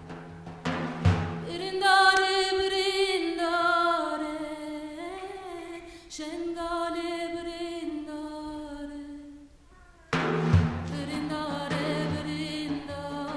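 A woman's voice singing a Kurdish Alevi song in long, wavering held notes, unaccompanied after a few opening bağlama strokes. About ten seconds in, the bağlama and percussion come back in strongly under the voice.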